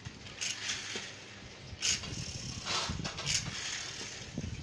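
Pull-back toy truck's spring motor whirring in several short bursts as its wheels are dragged back over a woven bamboo mat and it is let go to run.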